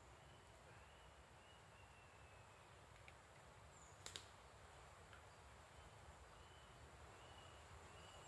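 Near silence: faint outdoor ambience with a few faint, high bird calls and a single sharp click about four seconds in.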